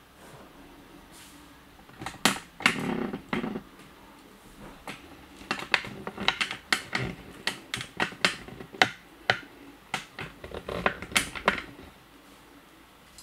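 Irregular sharp clicks and light taps on a wooden tabletop from a kitten's wand-toy play, with a cluster of duller knocks about two to three and a half seconds in.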